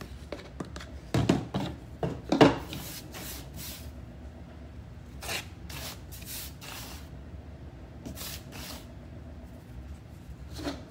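Flour being poured and scooped into a metal measuring cup over a sheet pan: several short, soft rustling scrapes with light knocks.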